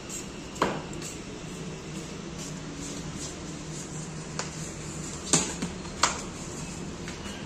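Several sharp knocks from a casual game of cricket on a stone-tiled floor, the loudest two a little after five and about six seconds in, over a steady low hum.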